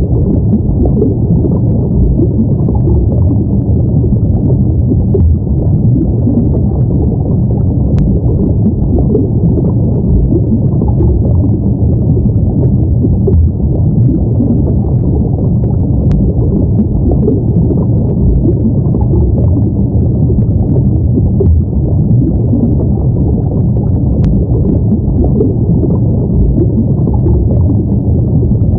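Steady underwater ambience: a deep, muffled rumbling wash with no distinct events, and a faint click roughly every eight seconds.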